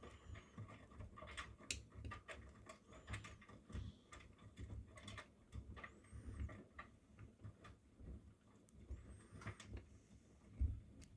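Miele front-loading washing machine with its drum turning, the laundry tumbling in irregular soft thuds mixed with light clicks.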